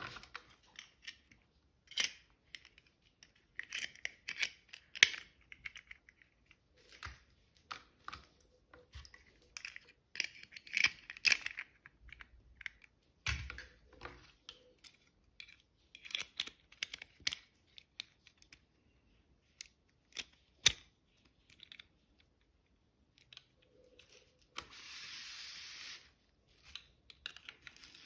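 Hands unwrapping and handling small toy packaging: scattered plastic clicks, taps and crinkling rustles, with a steady tearing rustle lasting about a second and a half near the end.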